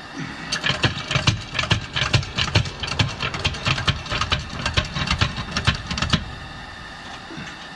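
A floor jack is being worked against a pry bar to lever a car's subframe down, with quick, irregular metal clicks and clatters. The clatter stops about six seconds in.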